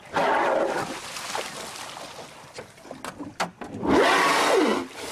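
Entangled humpback whale blowing at the surface right beside the boat: two loud whooshing exhalations, the second about four seconds in and louder, with a rising and falling tone in it.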